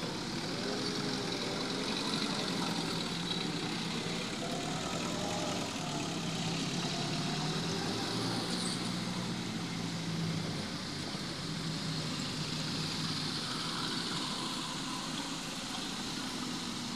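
Minibuses and cars driving slowly past one after another, their engines running as a steady mix of traffic noise.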